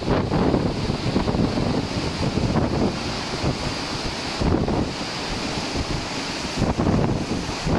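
Strong wind buffeting the microphone in uneven gusts, over the rush of a rough sea and a ship's churning wake.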